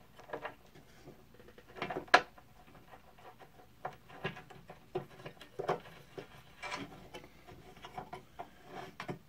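Light, scattered clicks and rubbing from hands threading the table-lock handle into the threaded hole on a benchtop band saw's tilt trunnion, with one sharper click about two seconds in.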